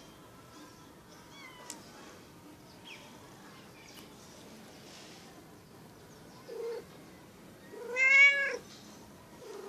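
Domestic cat meowing: a short call about six and a half seconds in, then a loud, drawn-out meow that rises and falls about eight seconds in.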